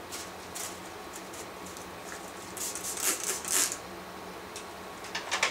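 Light clicks and rustling from plastic spiral perm rods and wet hair being handled while a perm is wrapped, in a few short clusters, the busiest about three seconds in. A faint steady hum runs underneath.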